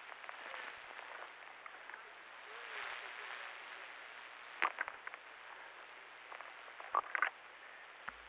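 Faint hiss of a two-way radio channel between transmissions. Sharp clicks come in a cluster about halfway through and again near the end.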